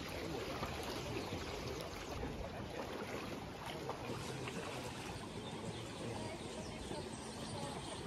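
Sea water lapping and splashing as a steady, noisy wash. The hiss thins out about halfway through.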